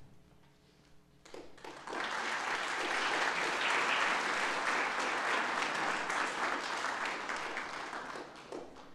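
Audience applauding, starting about a second in, swelling quickly and dying away near the end.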